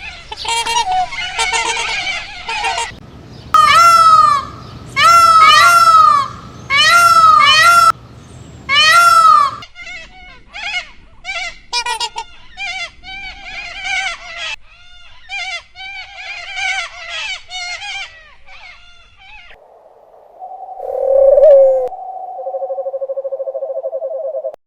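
Farm fowl calling in several separate clips, typical of domestic geese honking: a run of rapid calls, then four loud bouts of repeated arching calls, then a quieter flurry of short calls, and near the end a sustained, wavering call.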